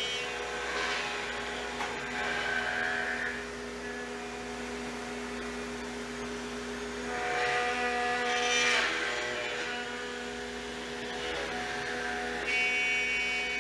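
CAMaster Stinger SR-34 CNC router spindle milling a formed Boltron (Kydex-type) thermoplastic holster blank. It runs as a steady machine hum, and the cutting noise swells twice, once about a second in and again around eight seconds.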